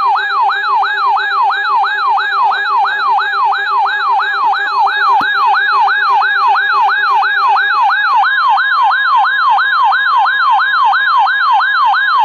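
Weather alert radio sounding its siren-style alarm: a rising electronic sweep repeating about three times a second, with a steady tone joining about eight seconds in. The alarm marks an incoming alert, a new severe thunderstorm watch.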